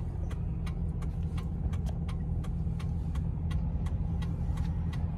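Steady low rumble of a truck heard from inside its cabin, with a rapid, regular ticking running through it at about three or four ticks a second.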